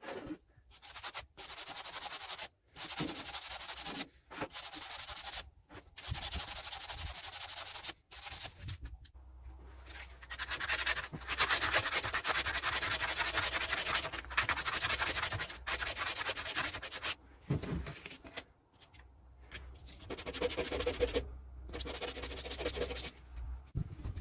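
Abrasive scrubbing of a metal generator part, cleaning it. Separate strokes about a second long with short breaks come first. In the middle is a longer, louder stretch of continuous fast scrubbing, and more strokes follow near the end.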